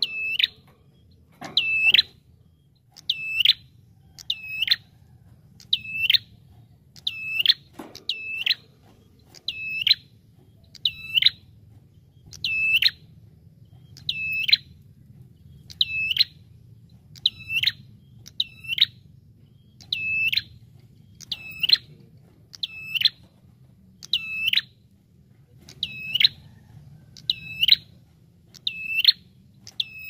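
Ashy tailorbird (prenjak) calling over and over: a loud, sharp, squeaky note that dips and rises in pitch, repeated about every one and a half seconds, sometimes doubled.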